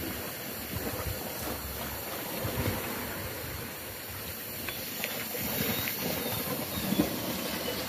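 Water lapping and splashing against the hull of a small wooden outrigger boat, a steady rough hiss with a few small knocks and splashes, the sharpest near the end.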